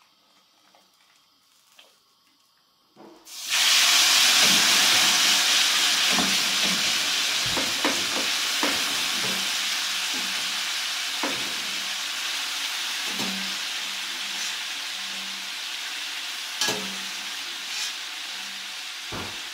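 Wet, just-boiled rigatoni dropped into a pan of hot rendered guanciale fat: a sudden loud sizzle about three seconds in, then steady sizzling that slowly dies down. A few light metal clinks come through the sizzling.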